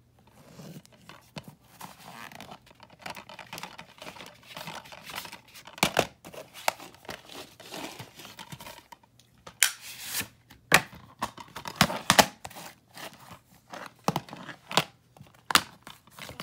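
A DVD case being handled and turned over on a wooden floor: scratchy rustling and scraping, broken by several sharp clicks and knocks.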